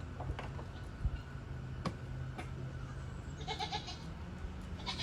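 Nigerian dwarf goat bleating: a short quavering call about three and a half seconds in and a brief one near the end, over a low steady hum and a few faint knocks.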